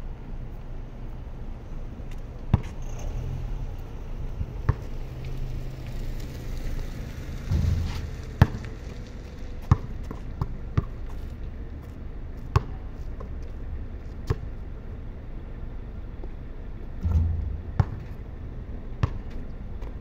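A basketball bouncing on a concrete court: single sharp bounces at irregular gaps of one to two seconds. Twice there is a short low rumble.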